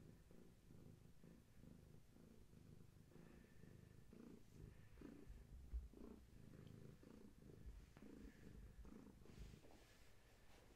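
Long-haired tabby cat purring softly while being stroked, with a few soft low thumps around the middle.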